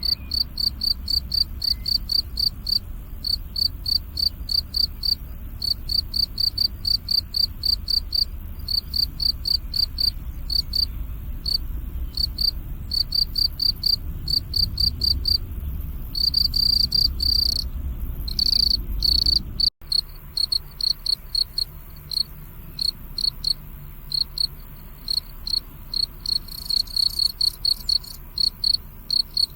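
Cricket chirping: short, high-pitched chirps repeated evenly, now and then running together into longer trills. The sound cuts out for an instant about twenty seconds in, and a low rumble underneath stops there.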